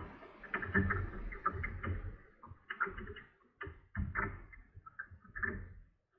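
Small waves lapping and slapping against a kayak hull in irregular bursts.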